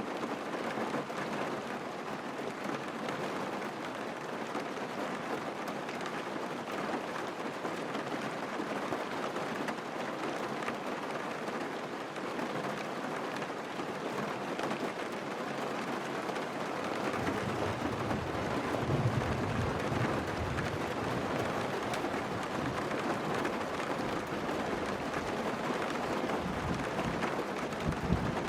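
Steady rain hitting a moving car, picked up inside the cabin, as an even hiss. A deeper rumble joins about two-thirds of the way through.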